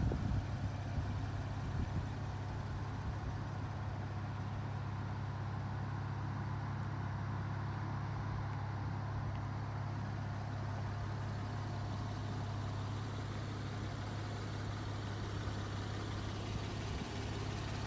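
Porsche 911 Carrera S's 3.8-litre naturally aspirated flat-six idling steadily, with no excessive noise: the engine sounds very healthy.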